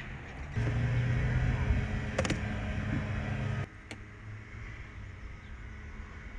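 A motor vehicle engine running on a residential street, a steady low hum with a couple of sharp clicks about two seconds in. About three and a half seconds in it cuts off abruptly to quieter outdoor street ambience.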